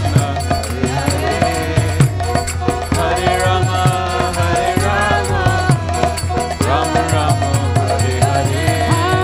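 Live kirtan music: voices singing a devotional chant with instruments over a steady, fast percussive beat.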